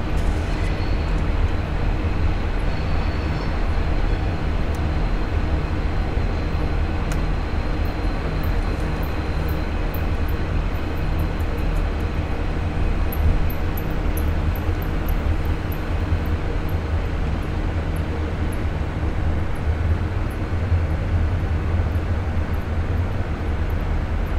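Diesel locomotive engines running with a steady low rumble as a light-engine consist of XR, X and G class diesel locomotives moves slowly through the yard.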